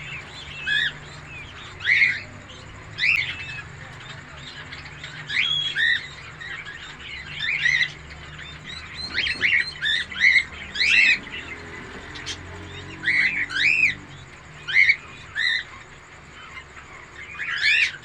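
Peacock chicks peeping: short, high chirps that rise and fall, repeated at irregular intervals, often in quick clusters of two or three.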